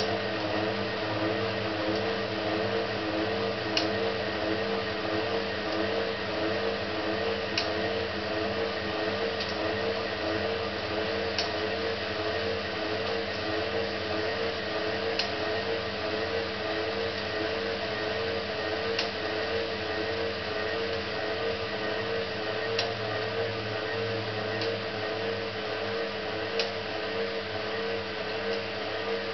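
Hotpoint 18371 Super Electronic washing machine running a rinse, its drum turning with water in it: a steady motor hum that wobbles regularly, with a short click about every four seconds.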